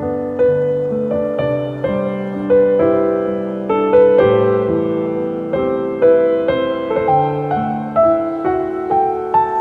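Soft solo piano music: a slow melody of single struck notes over sustained lower chords, each note ringing and fading.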